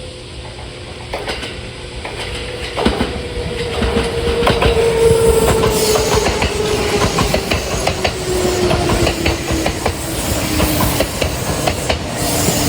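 Kintetsu 2410-series and 1436-series electric train running through the station, growing louder, its wheels clacking over rail joints. A steady whine falls slowly in pitch, typical of the train slowing.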